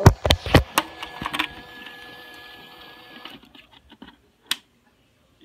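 Gemmy spinning snowman candy bowl's small motor spinning the top with a steady whine, with several loud knocks and clatters in the first second and a half. The motor stops about three seconds in, then a single click. No song plays: the toy's speaker is dead.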